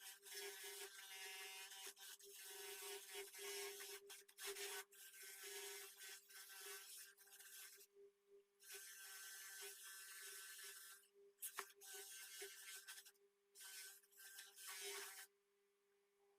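Axminster bench polishing machine running with a steady hum while a small metal piece is pressed against the buffing wheel. The rubbing comes in long stretches with brief pauses where the piece is lifted off, around eight, eleven, thirteen and fifteen seconds in.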